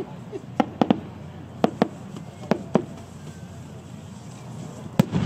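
Sharp cracks of ten-inch aerial firework shells bursting, several coming in close pairs over the first three seconds, then one louder crack near the end.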